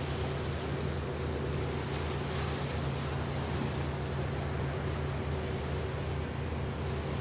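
Fireboat engine running with a steady low drone, under the noise of wind and choppy water rushing past the deck.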